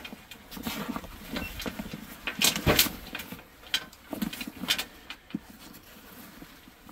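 A large military rucksack being handled: fabric rustling with scattered irregular clicks and knocks from its straps and fittings.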